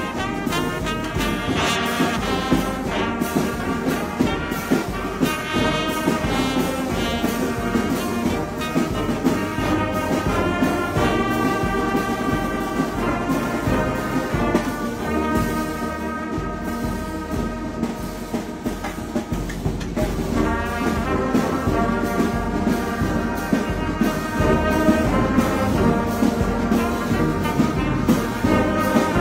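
A brass band playing live: trumpets carry a melody in held notes over low brass, with a steady beat from bass drums and cymbals.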